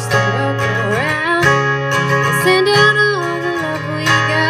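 A woman singing held notes that slide between pitches, over a strummed acoustic guitar, both amplified through a microphone and small PA.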